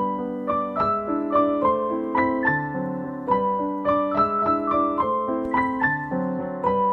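Piano music: a melody of single notes, about three a second, over held lower notes.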